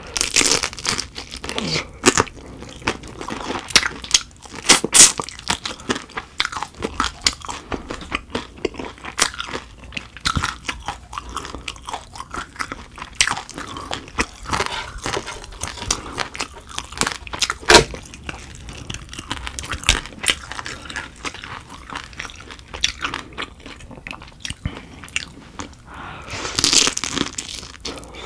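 Close-up crunching and chewing of butter-grilled dohwa shrimp heads: the crisp shells crack in quick, irregular crackles, with a few louder crunches.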